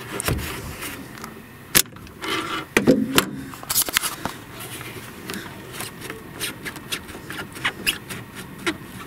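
Hand work on a radiator's upper rubber hose: scattered clicks, knocks and scrapes as the spring hose clamp is squeezed open with hose-clamp pliers and the hose is worked off the radiator neck. The sharpest knocks come about two seconds in and again around three to four seconds in.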